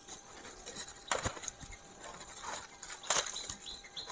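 Leaves and thin stems rustling and crackling as they are grabbed and pulled by hand, with two sharper snaps, one about a second in and one about three seconds in.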